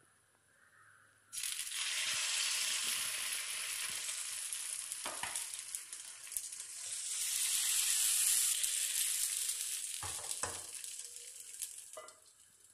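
Paalappam batter sizzling in a hot pan as it is poured in and swirled. The hiss starts suddenly about a second in and fades over the last couple of seconds. A couple of knocks about ten seconds in, then a clink as a steel lid is set on the pan near the end.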